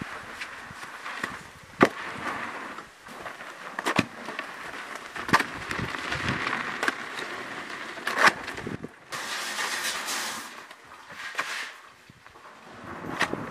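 Cement being mixed by hand in rubber tubs with hoes and shovels: gritty scraping and churning, with a few sharp knocks of the tools against the tubs.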